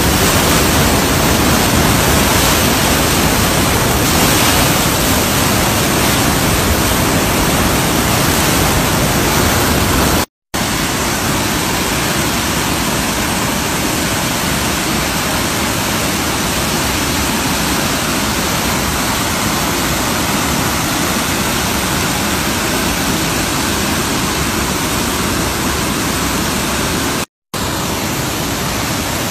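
Steady, loud rush of a flooded, fast-running river's churning muddy water. The sound cuts out for a split second twice.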